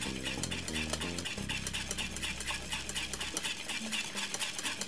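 Wire whisk stirring cornmeal porridge in an aluminium saucepan, its wires scraping and tapping the pan in a steady rhythm of about four to five strokes a second.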